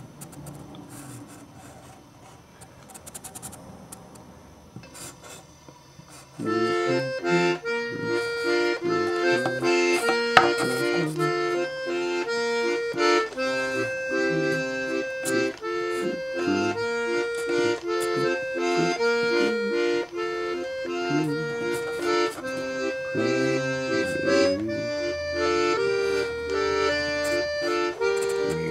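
Faint, indistinct sound for about six seconds, then music with held chords under a moving melody starts abruptly and plays on.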